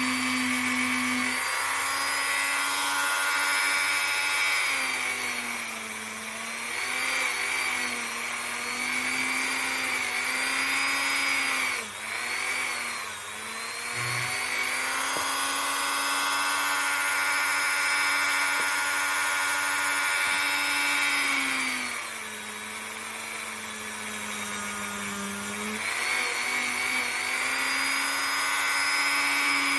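Dremel rotary tool running at high speed, polishing the revolver's steel hammer and trigger parts. Its steady whine sags in pitch now and then as the bit is pressed against the metal, most of all for a few seconds past the middle.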